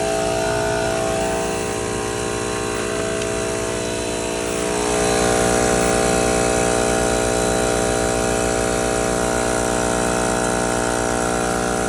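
Predator Super Quiet portable generator's engine running steadily with an air compressor running off it. About five seconds in, the engine note steps up and gets louder, consistent with the generator coming off idle to carry the compressor's load.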